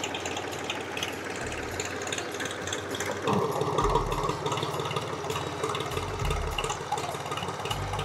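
An engine running steadily, getting louder and busier from about three seconds in.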